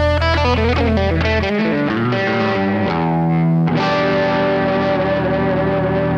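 Background music led by distorted electric guitar, sustained chords changing about a second and a half in and again about three and a half seconds in.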